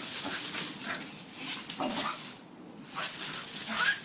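Dry leaves crunching and rustling underfoot, with a puppy giving two short whimpers; the second rises in pitch near the end.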